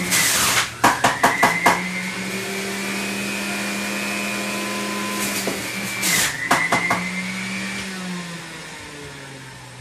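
Electric juicer motor running with a steady whine that dips in pitch as produce is pushed down the chute, followed by a quick clatter of the pieces being shredded: once for cauliflower, then again for a cucumber. Near the end the motor is switched off and winds down, its whine falling in pitch and fading.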